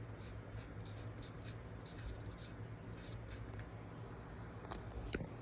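Faint, irregular scratching and rubbing strokes on the new furnace filter's cardboard frame, over a low steady hum.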